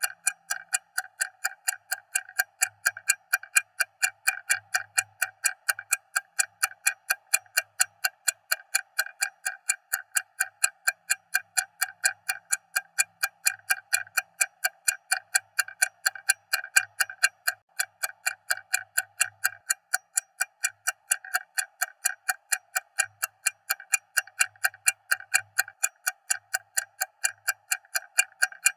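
Stopwatch ticking loudly and evenly, several sharp ticks a second at an unchanging pace.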